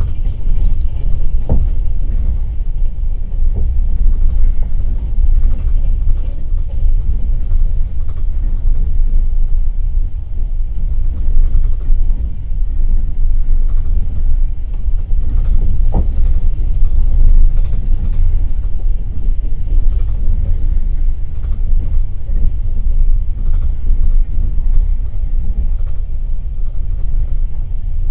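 Passenger train carriage running at speed, a steady low rumble from the wheels and running gear, with a sharp click about a second and a half in and another about halfway through.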